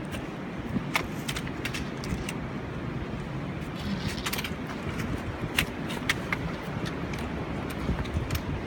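Wind rumbling on the microphone, with scattered light clicks and rattles throughout.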